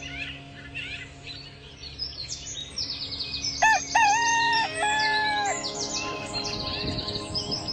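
A rooster crowing once, a rising then held cock-a-doodle-doo about halfway through, over small birds chirping in quick high trills.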